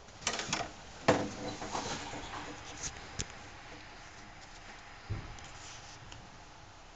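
Handling clicks and knocks: a few quick clicks, then a sharp knock about a second in, scattered lighter clicks after it, and a dull thump about five seconds in.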